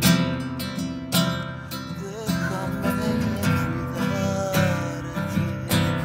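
Nylon-string classical guitar strummed in chords: strong strums about a second apart at the start, a lighter passage in the middle, and strong strums again near the end.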